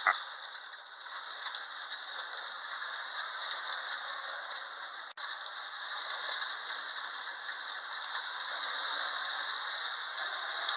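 Vintage Hafner tinplate toy train running round its track, its loco driven by a refitted Lionel electric motor; the loosely coupled tin cars rattle and clack steadily, a clickety-clack. The sound drops out for an instant about five seconds in.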